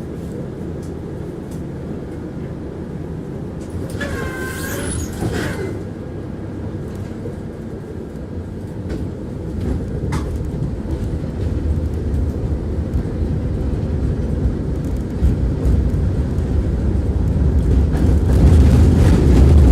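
Tram running along its rails, heard from inside the passenger cabin: a steady low rumble of wheels and running gear, with a brief high squeal about four seconds in. The rumble grows louder toward the end.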